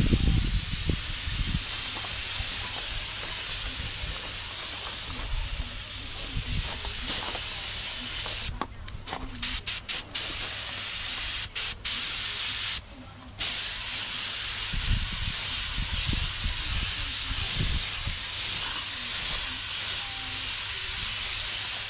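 Paint spray gun hissing as colour is sprayed and blended over a bumper repair, in long passes broken by several brief trigger releases around the middle. A few low thuds come near the start and again later on.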